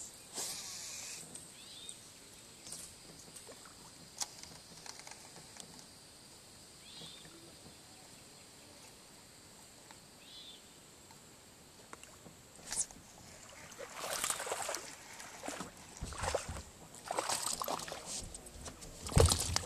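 Fishing rod and reel being handled in a small boat: a brief hiss of a cast near the start, then mostly quiet with faint scattered ticks. In the last third come louder clicking, rustling and knocking from the reel and rod as the line is worked, with a low thump about a second before the end, the loudest sound.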